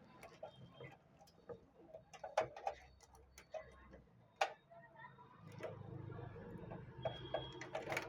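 Scattered light clicks and knocks of hands handling PC parts and power cables, the sharpest about two and a half and four and a half seconds in.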